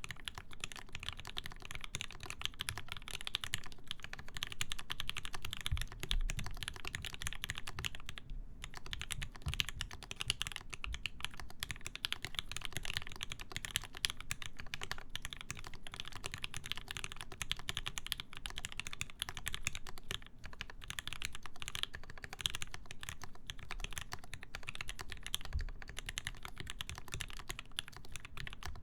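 Continuous fast typing on a mechanical keyboard with lubed Gateron Ink linear switches, a full brass plate and GMK keycaps: a dense stream of keystroke clicks with a couple of brief pauses.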